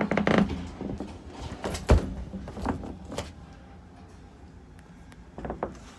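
Hollow thumps, knocks and scuffs of a person crawling through plastic play-structure tubes. There is a cluster of knocks at the start, one heavy thump about two seconds in, a few lighter knocks after it, and a pair near the end.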